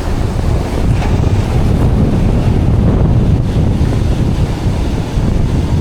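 Strong wind buffeting the microphone in loud, low gusts, with ocean surf beneath it.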